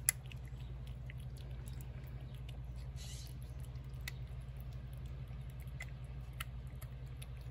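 A cat eating wet food from a plate: small, irregular chewing and lapping clicks, with one sharp click right at the start, over a steady low hum.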